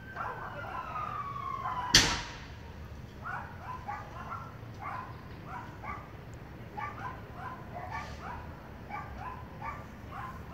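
An emergency-vehicle siren wails, falling in pitch and stopping about two seconds in, where one sharp, loud bang sounds. A dog then barks repeatedly.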